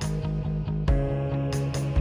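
Background instrumental music with a beat.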